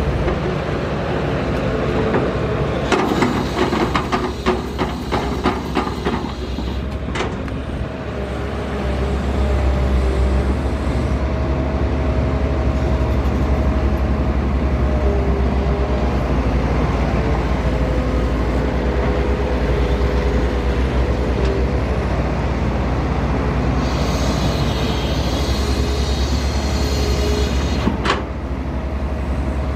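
Shantui ME210 C-1 hydraulic excavator working: its diesel engine runs with a steady low drone and a whine that steps up and down in pitch. A rapid clatter of knocks comes a few seconds in, and near the end a hiss ends in a sharp knock.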